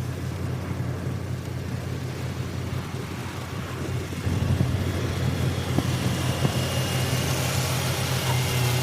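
A vehicle engine running steadily, a low even drone, with a hiss rising in the background after about four seconds.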